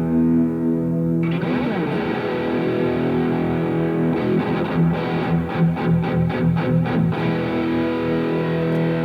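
Electric guitar played through a Revv G3 preamp/distortion pedal with heavy distortion. A held chord rings out, a busy riff starts about a second in, a run of quick, short staccato notes comes around the middle, and it ends on another held, ringing chord.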